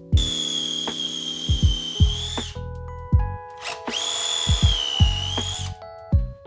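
An electric power tool's motor runs in two bursts of about two seconds each, a high steady whine that dips slightly just before each stop, over background music with drum hits.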